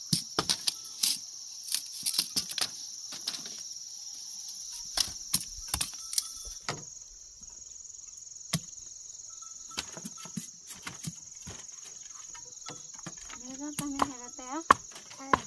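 Steady high-pitched insect chorus, crickets or cicadas, with many sharp clicks and knocks scattered through it and a brief voice near the end.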